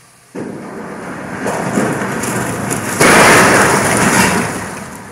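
A large ferry's hull crashing into and scraping along a concrete quay wall: a loud rumbling noise starts suddenly, swells to its loudest about three seconds in, then fades.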